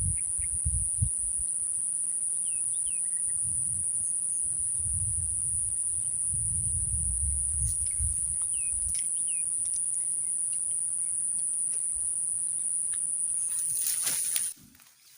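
Insects, such as crickets or cicadas, shrilling in a continuous high-pitched drone, with a few faint bird chirps and low rumbles now and then. The sound cuts off abruptly near the end.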